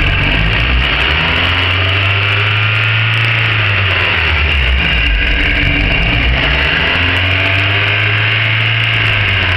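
Tigra's four-cylinder petrol engine running with its revs surging up and down on their own, with nobody on the throttle: high at first, sagging about four seconds in, then climbing back about two seconds later. The idle is hunting.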